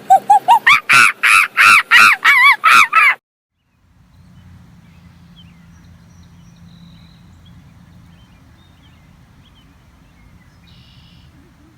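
An animal's loud, harsh calls repeated about four times a second, the first one rising in pitch, cutting off suddenly about three seconds in. Faint low background noise follows, with a few faint chirps near the end.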